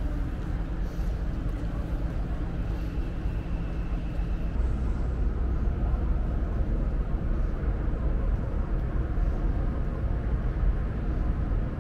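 Steady low drone and rumble of a large moored car ferry's machinery running at the berth, close up beside the hull.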